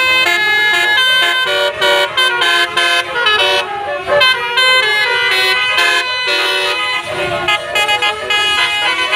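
Telolet multi-tone musical horn playing a full melody, its loud notes changing pitch several times a second without a break.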